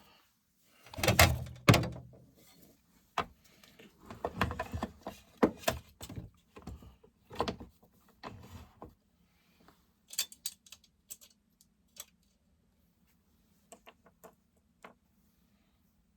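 Irregular knocks, clicks and clattering of chainsaw parts and hand tools being handled during assembly, busy for the first several seconds and then thinning to scattered single clicks.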